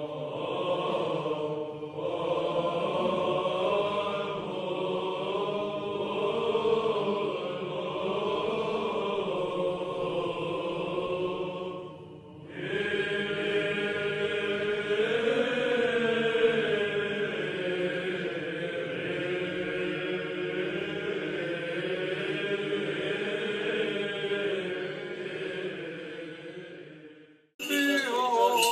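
Slow chanted vocal music in Byzantine style: voices holding long sustained notes with a slowly moving melody over them. There is a brief break about twelve seconds in. Near the end it fades out, and a different recording of singing cuts in abruptly.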